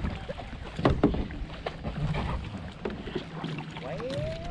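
Hollow knocks and bumps on a kayak's hull as someone shifts in the seat, the loudest about a second in, with water lapping and wind on the microphone.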